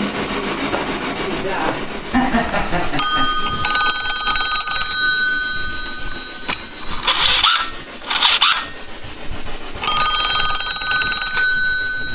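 A telephone's twin-bell ringer ringing in two spells: the first starts about three seconds in and lasts about three and a half seconds, the second is shorter, near the end. Two short noisy bursts fall between the rings.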